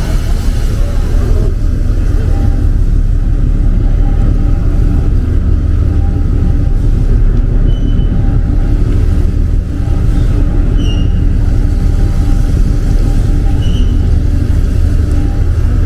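A boat's engine running steadily: a loud, low drone with a constant hum.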